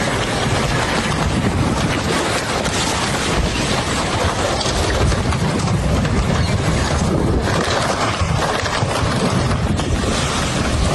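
Floodwater rushing past: a loud, steady, unbroken rushing noise, heaviest in the low end.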